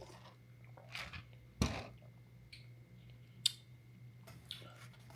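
Close-up chewing of crispy fried hot chicken, with a few sharp crunches, the loudest about a second and a half in and another near three and a half seconds.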